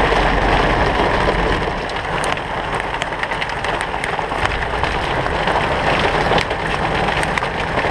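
Hail and heavy rain pelting a pickup truck's roof and windshield, heard from inside the cab: a loud, dense, steady clatter with many sharp ticks.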